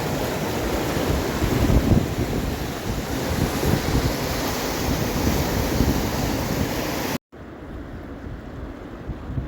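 Rushing water of the Lachine Rapids on the St. Lawrence River, with wind buffeting the microphone as a gusty low rumble. About seven seconds in the sound cuts out for an instant and returns quieter and duller.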